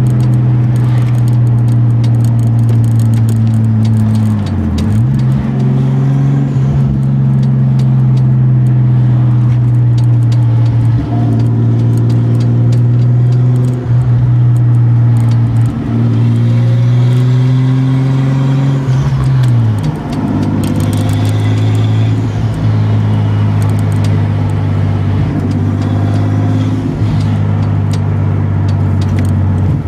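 Nissan 240SX's swapped RB25DET turbocharged straight-six, heard loud from inside the cabin while driving: a steady engine drone whose pitch falls away and comes back twice, about five seconds in and near twenty seconds.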